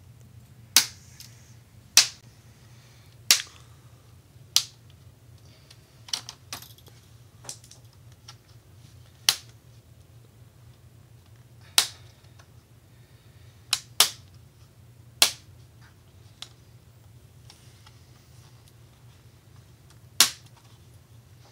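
Plastic screen bezel of a Lenovo G710 laptop being pried off by hand, its retaining catches snapping loose one after another. There are about a dozen sharp pops, irregularly spaced and some a second or more apart.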